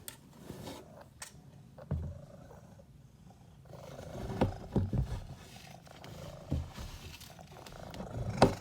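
Mother cat purring right at the microphone, a steady low rumble. It is broken by a few loud bumps and rustles as she rubs her face against the phone, the loudest near the end.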